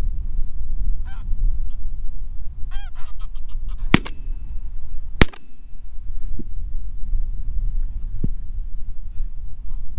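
Geese honking, then two 12-gauge shotgun shots from a Browning A5 about a second and a quarter apart, fired at geese coming in over the decoys. Steady wind rumble on the microphone underneath.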